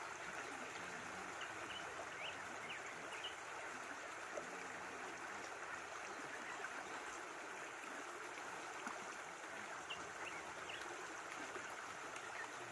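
Shallow creek running over stones, a steady rush and babble of water, with a few faint short high chirps now and then.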